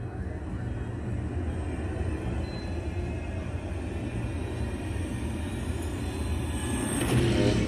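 Sci-fi film soundtrack from a DTS audio demo: a deep, steady spaceship rumble under dark, ominous music, swelling louder near the end.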